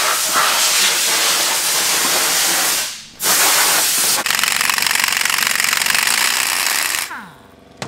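Pneumatic air-tool noise: a loud hiss, a brief break about three seconds in, then an air impact wrench hammering on Loctited ring gear bolts of a differential carrier. It stops near the end and spins down.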